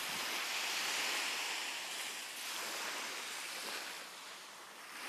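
Sea surf washing on a beach: a steady hiss of waves that swells and eases, then fades lower near the end.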